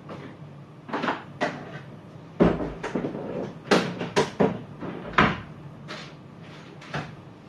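Hard objects being handled: a series of sharp clacks and knocks, the loudest about two and a half seconds in and a cluster around four to five seconds in.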